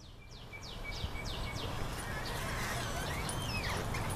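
Birds singing: a run of quick falling chirps, about three a second, for the first second and a half, then wavering warbled notes. Under them a rushing noise builds from about a second in.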